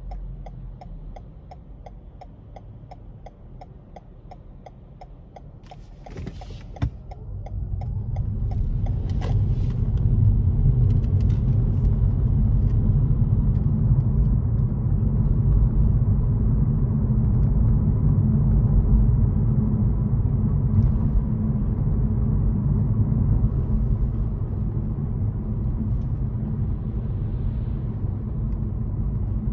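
A car's turn signal ticking evenly while the car waits, then a couple of sharp clicks. The car then pulls away, and engine and road noise rise over a few seconds to a steady, loud rumble.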